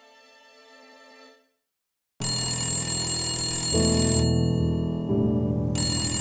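Soft music fades out into a moment of silence. About two seconds in, a loud, buzzy electronic ringtone starts suddenly, its tones changing every second or so.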